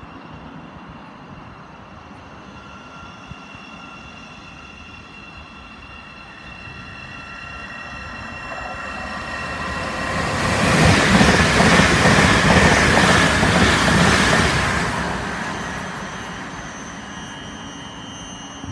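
A faint steady electric whine from an approaching train at first. Then, about ten seconds in, two coupled Class 387 electric multiple units pass at speed: a loud rush of wheels on rail and traction motors that swells, holds for several seconds and fades away.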